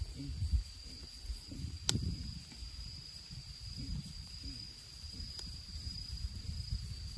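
A kitchen knife slicing shiitake mushrooms on a cutting board, with a sharp tap of the blade on the board about two seconds in and a fainter one a few seconds later. Behind it runs a steady high-pitched insect sound and a low rumble.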